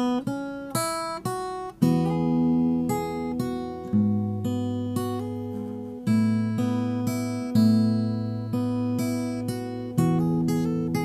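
Background music: acoustic guitar playing plucked notes and chords that ring and fade, changing every second or so.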